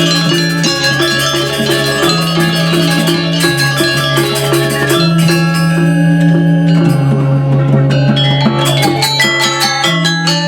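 Balinese gamelan playing: bronze metallophones strike rapid, dense patterns over held low notes that step to a new pitch every couple of seconds. The upper strikes thin out briefly past the middle, then grow busy again near the end.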